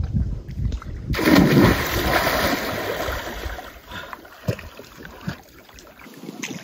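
Lake water splashing at a rocky shore, with a sudden loud rush of splashing about a second in that fades away over the next two seconds.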